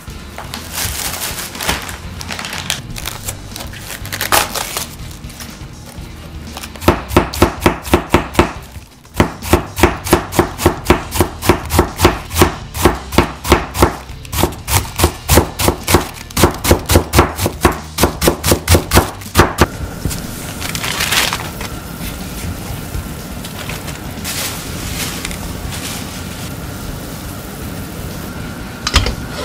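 Kitchen knife shredding a cabbage on a plastic cutting board: a fast, even run of chops, about four a second. The chopping starts about seven seconds in and stops with about ten seconds left.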